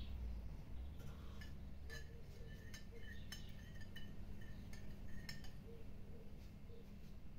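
Metal spoon stirring oil and water in a glass mixing bowl, clinking against the glass again and again with a light ringing tone while the salt is dissolved in the liquid. The clinks come in a quick irregular run and stop about five and a half seconds in.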